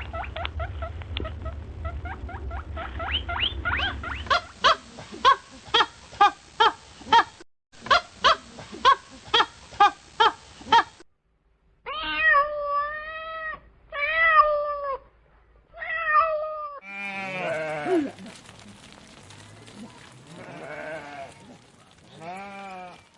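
A string of short animal-sound clips, one after another. First come quick squeaky calls, then a fast, evenly spaced series of short calls. After a short break there are three drawn-out pitched calls, and more calls follow near the end.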